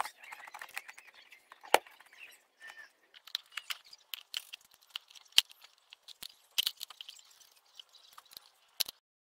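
Scattered sharp clicks and knocks of plastic and metal as a plastic air filter housing cover is pressed into place on a car engine and a hand tool works a fastener at the intake duct, with light rubbing and rattling between the knocks.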